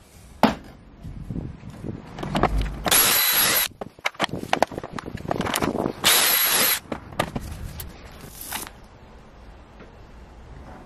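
Drill spinning a stepped pocket-hole bit through a pocket-hole jig into a wooden board. It makes two short bursts of boring with a high whine, then a shorter third, with knocks and clatter between the bursts.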